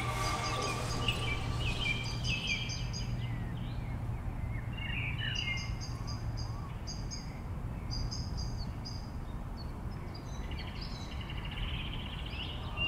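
Outdoor birdsong: songbirds calling in quick repeated groups of high chirps, with some lower warbling phrases, over a steady low hum.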